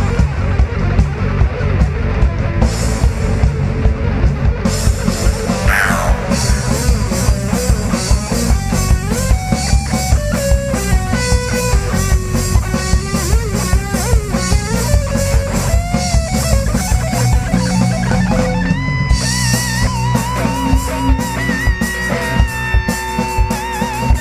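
Rock band playing an instrumental passage: an electric guitar lead over bass and drums. The guitar bends its notes, then from about two-thirds of the way through holds long notes with vibrato.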